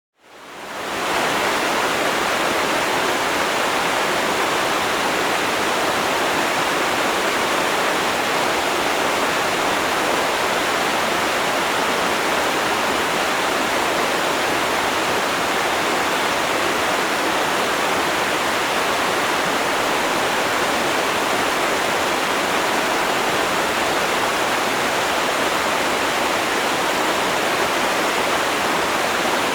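River water rushing in a steady, even flow, fading in over about the first second.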